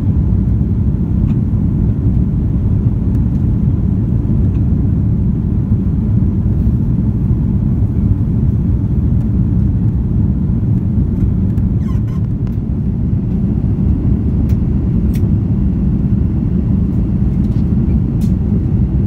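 Steady low rumble of a jet airliner's engines and airflow heard inside the passenger cabin in flight, with a few faint ticks.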